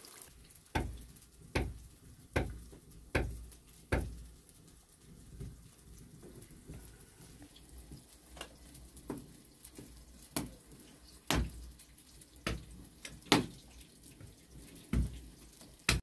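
A series of short, dull knocks: five evenly spaced in the first four seconds, then irregular ones every second or so, with faint background noise between them.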